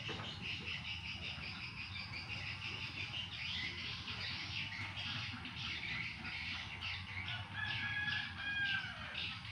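Birds chirping steadily in rapid short notes, with insects, and a single clear whistled bird note about eight seconds in.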